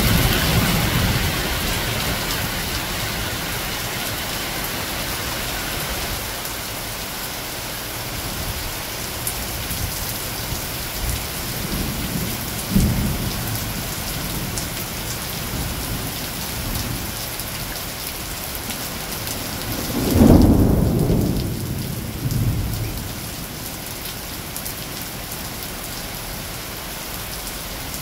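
Heavy rain falling steadily on garden foliage and lawn during a thunderstorm. Thunder rumbles several times: a short low jolt about halfway through, then a louder, longer roll about two-thirds of the way in, followed by a weaker one.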